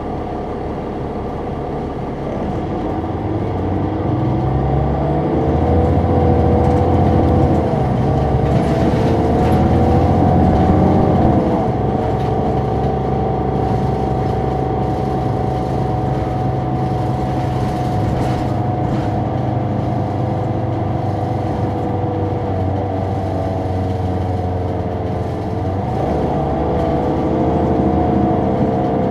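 Caterpillar C9 ACERT diesel and ZF Ecomat automatic transmission of a Neoplan AN459 articulated bus, heard from on board as it pulls away: the engine note climbs, drops briefly at a gear change about eight seconds in, climbs again, then holds steady. Near the end another brief drop and rise marks a further shift.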